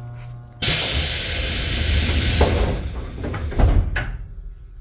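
Sudden loud hiss of compressed air being let out on a Tobu 8000-series electric train, starting about half a second in and lasting about three seconds, ending with a low thud and a click.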